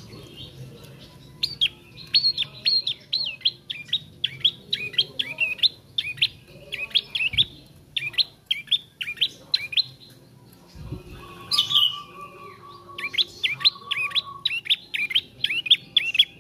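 Young prenjak trotol singing a fast run of sharp, sweeping chirps, about three a second, in two runs with a pause just past the middle. A steady lower tone sounds briefly in the pause.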